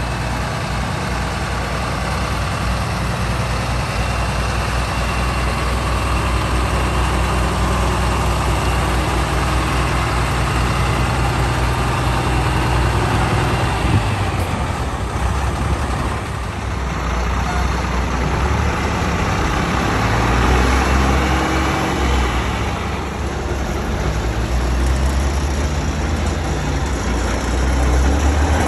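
Heavy truck engine idling, steady and low-pitched, with a short dip in the sound about halfway through.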